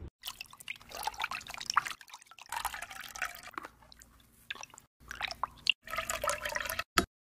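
Liquid sounds of a dark herbal jelly brew being stirred in a pot with a plastic slotted spoon and poured into a glass dessert cup. These come in several short clips that start and stop abruptly, with a sharp click near the end.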